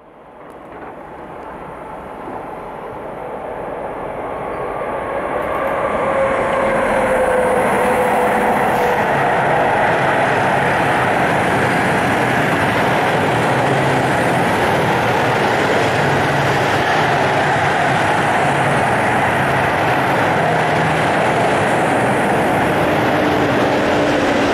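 A rolling highway freight train, lorries riding on low-floor rail wagons, passing with a steady rumble of wheels on the rails. The sound fades up over the first few seconds, then holds loud and even.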